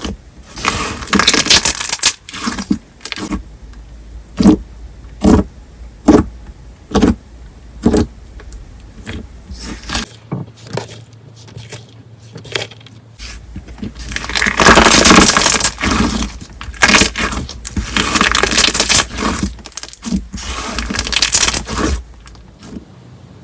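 Candle-type thick slime being worked by hand, its glossy surface film bursting with loud crackling and popping as trapped air breaks through. Single sharp pops come about once a second early on, then longer runs of dense crackling later.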